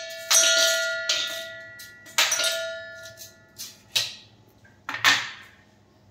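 Metal kitchen utensils clinking against a steel vessel: about six knocks, the louder ones leaving the vessel ringing with a clear tone that fades over a second or so.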